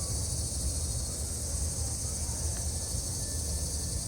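Crickets buzzing in a steady, continuous high-pitched chorus, over a low steady rumble.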